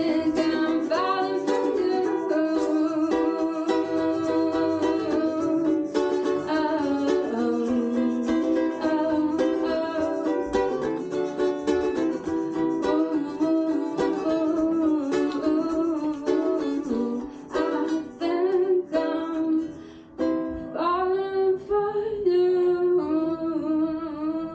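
A woman singing live with her own small acoustic string instrument played under her voice, in a small room. The music thins and dips briefly about twenty seconds in, then goes on.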